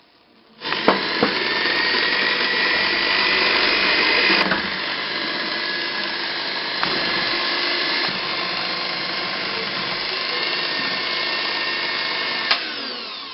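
Electric hand mixer running with its twin beaters in a bowl of egg and milk pancake batter, a steady motor whine with a few sharp clicks. It starts about half a second in and is switched off near the end, the whine falling as it spins down.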